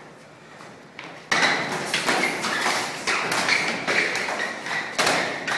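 Boxing gloves landing punches on helmets and bodies: a rapid, irregular flurry of thuds and taps that starts abruptly a little over a second in and keeps going.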